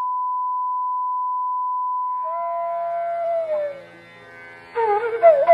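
A steady, high, pure test tone stops about three seconds in, as instrumental music fades in: a gliding melody over a steady drone.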